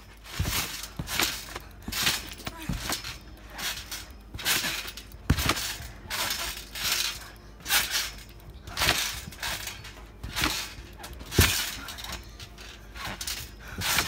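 Trampoline being bounced on in a steady rhythm, about one bounce a second: each landing sets the metal springs jangling and the mat thumping.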